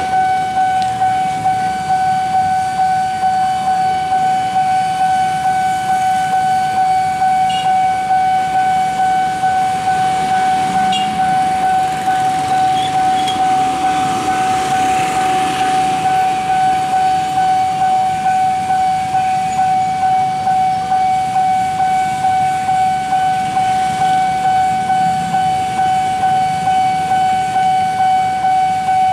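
Railway level-crossing warning alarm ringing: one steady high tone pulsing in a fast, even rhythm, the signal that a train is coming through the crossing.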